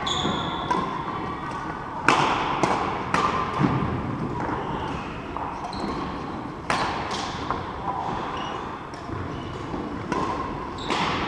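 Badminton rackets striking a shuttlecock during a doubles rally: a series of sharp cracks, the loudest about two seconds in and again near seven seconds, with shoes squeaking and feet thudding on the wooden court floor of a large hall.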